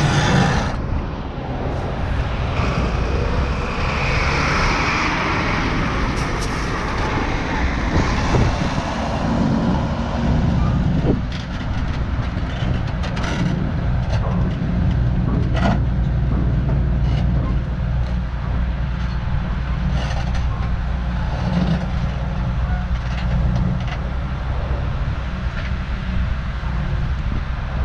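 Volvo FMX truck's diesel engine running steadily, with a hiss of air a few seconds in and a few light clicks.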